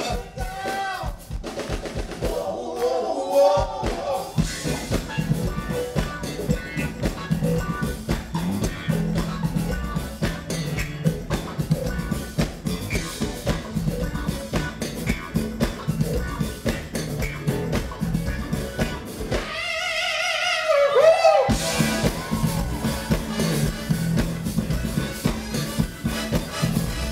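Live funk band playing: electric bass and drum kit driving a steady groove. About twenty seconds in, the bass and drums drop out for about two seconds under a single sliding pitched line, then the full band comes back in.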